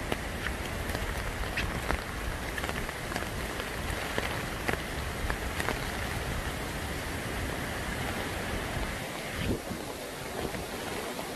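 Rain falling, with scattered drops ticking close by over an even hiss. A low rumble underneath eases off about nine seconds in.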